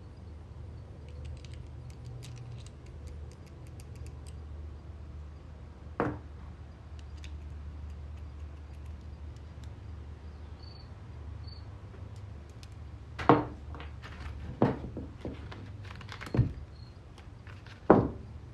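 Small metal parts being handled: a few sharp clicks and knocks, one about six seconds in and four more spread over the last six seconds, over a steady low hum.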